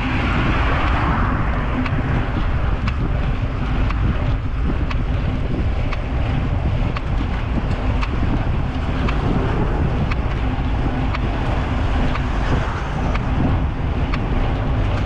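Wind buffeting the microphone of a camera riding on a moving bicycle, a steady rushing with heavy low rumble and scattered small clicks from the road.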